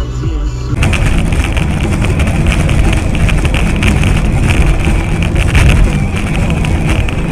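Electronic music cuts off about a second in, giving way to loud, steady vehicle noise: engine and road rumble with a hissy upper band.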